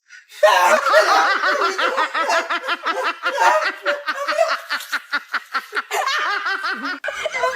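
Loud laughter in quick repeated pulses of giggling, several a second. It starts abruptly from silence about half a second in and breaks off sharply near the end.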